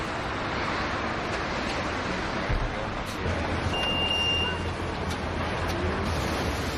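Steady street background noise, with one short electronic beep from a Biceberg automated bicycle-parking kiosk about four seconds in, as a card is inserted into its reader.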